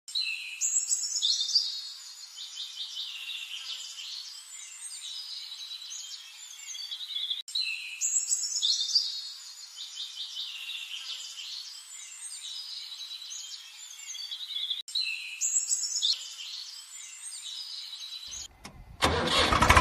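Birds chirping and twittering, the same stretch of song repeating about every seven seconds. Near the end an engine-like running sound cuts in and becomes the loudest thing.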